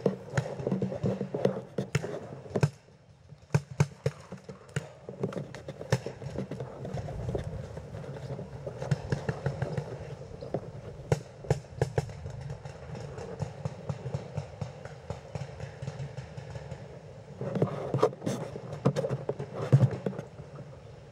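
Paintball markers firing: scattered sharp pops, some in quick runs, over a steady rustle of movement.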